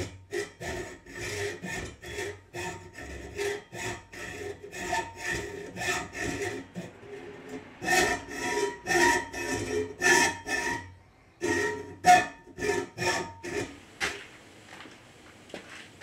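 Hand hacksaw cutting through a slotted metal shelf standard, with a steady series of back-and-forth strokes, about two a second. The strokes stop about two seconds before the end.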